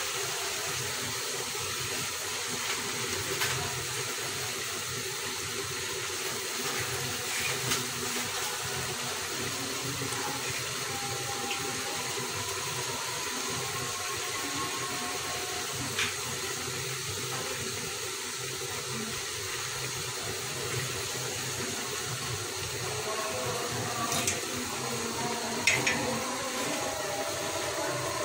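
Steady sizzling hiss of cut potatoes, cauliflower, flat beans and onion cooking in oil in a karahi over a gas burner, with a few small ticks now and then.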